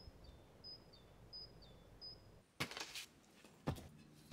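In the first half a bird repeats a short high chirp with a lower note about four times. In the second half concrete cinder blocks are dropped onto bare dirt and onto each other, giving three or four hard knocks, the last the loudest.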